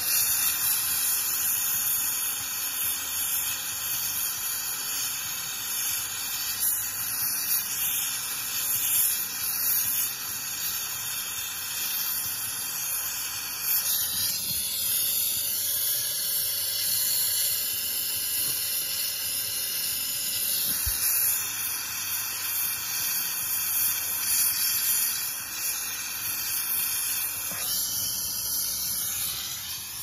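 Jeweller's oxy-fuel soldering torch hissing steadily as its flame heats the solder joints on a silver buckle, then shut off right at the end.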